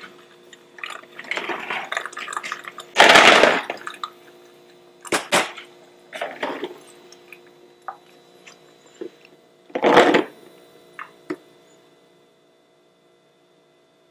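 Water splashing in a plastic tub in the sink as golf balls are handled, the loudest splash about three seconds in. Then a few sharp clicks and knocks as golf balls are set into a glass bowl, over a faint steady hum, before it falls quiet.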